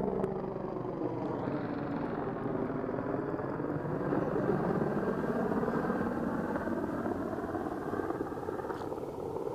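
Helicopter flying low overhead: a steady drone from its engine and rotor, its pitch slowly bending as it passes.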